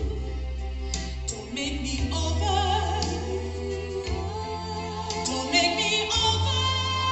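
A woman singing sustained notes with a wide vibrato into a microphone, over accompaniment with a steady bass line.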